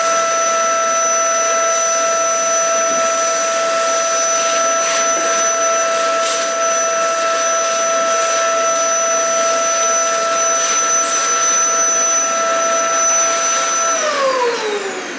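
Vacuum cleaner running steadily with a whine, sucking up broken windshield glass particles. About fourteen seconds in it is switched off, and its pitch falls as the motor spins down.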